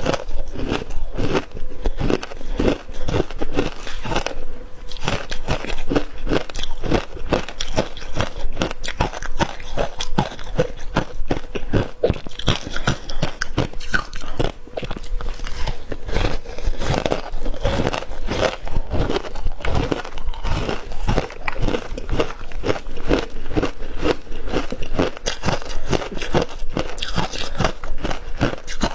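Ice being bitten and chewed close to the microphone: a steady run of rapid, crackling crunches as the pieces break between the teeth.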